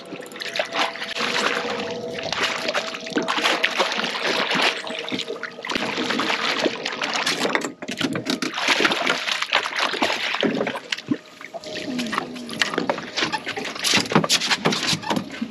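Water splashing and sloshing along a boat's hull as a hooked king mackerel thrashes at the surface alongside, with many short splashes. Near the end the fish is lifted out of the water, dripping.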